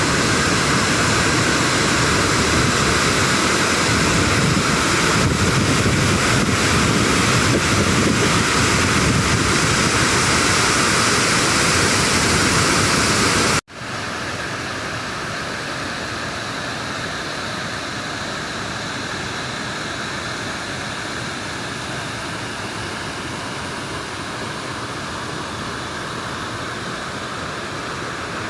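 Waterfall rushing steadily, a dense hiss of falling water. About halfway through it cuts out for an instant and comes back quieter.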